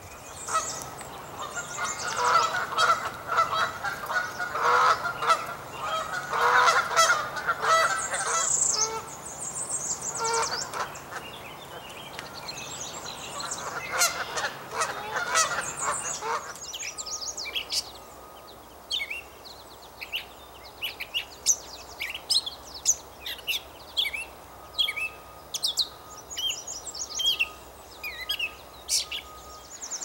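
Birds calling: a dense, loud run of overlapping calls through the first half. After a cut about halfway in, this gives way to a string of short, sharp, high chips, one or two a second.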